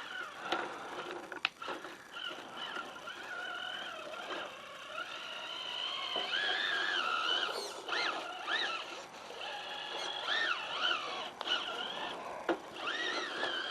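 Hobbywing Fusion Pro brushless motor of a 1/10-scale RC crawler whining as it drives, its pitch rising and falling with the throttle, with a few short clicks from the truck.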